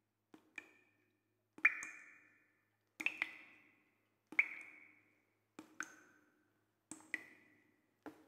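A slow series of plinks, about seven in all, one roughly every second and a quarter. Each is a sharp click followed by a short ringing tone that fades within about half a second, and the pitch shifts from one plink to the next. The loudest comes about a second and a half in.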